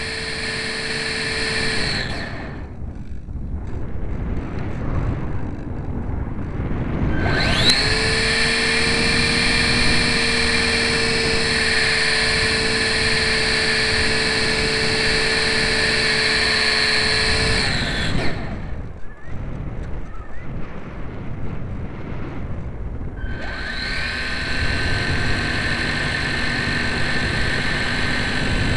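Electric motor and propeller of a GWS Slow Stick RC plane heard from a camera on board, running with a steady whine. The whine cuts off about two seconds in, leaving only rushing air while the plane glides. It comes back with a quick rising whine about seven seconds in, cuts again around eighteen seconds, and powers up once more about five seconds later.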